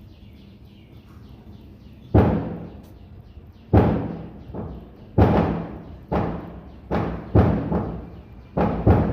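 A run of heavy hammer blows, about nine at uneven spacing, starting about two seconds in, each ringing briefly after the strike.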